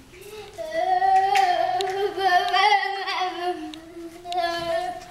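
A young child singing a drawn-out, wordless tune, the pitch wavering slowly up and down, with a brief dip about three seconds in.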